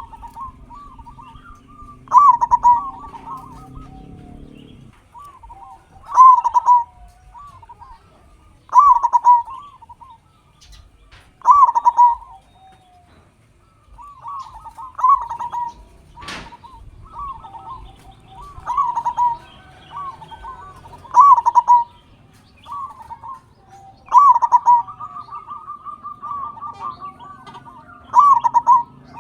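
Local zebra dove (perkutut) cooing: its rolling, bubbling phrase comes again every two to three seconds. There is one sharp click about sixteen seconds in.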